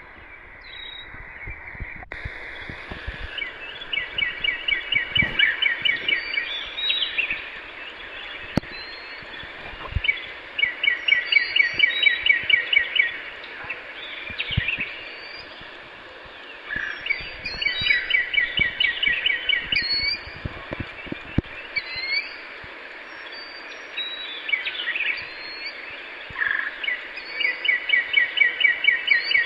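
Birds singing outdoors: one bird repeats a rapid trill of evenly spaced notes, each trill about three seconds long, four times, while other birds give short high chirps over a steady background hiss.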